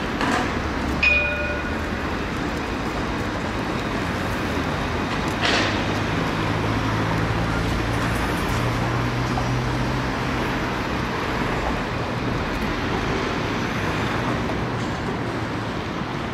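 Alstom Citadis tram of Montpellier Line 1 running slowly past on street track through a curve: a steady rolling rumble, with a low motor hum from about five seconds in. A sharp click about a second in and a single knock about five seconds in.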